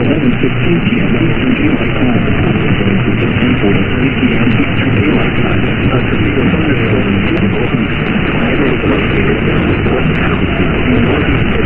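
Steady hiss of radio static from a weakly received broadcast, with a faint, indistinct voice buried under it.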